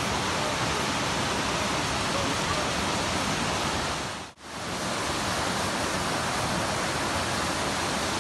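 Rushing water of a rocky river cascade, a steady hiss; it dips out briefly a little over four seconds in, then carries on.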